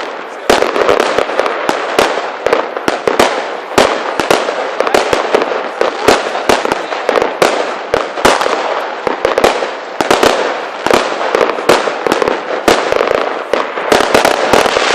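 Fireworks going off in quick succession: a rapid string of sharp bangs, about two to three a second, over continuous crackling.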